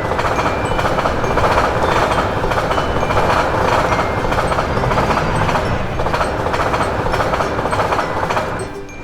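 A train running past a railway level crossing, a steady loud noise of wheels on track that dips briefly near the end.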